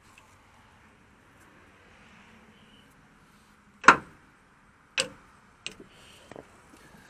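Two sharp knocks about a second apart, the first the loudest, followed by a few lighter clicks, typical of hard tools or parts being handled.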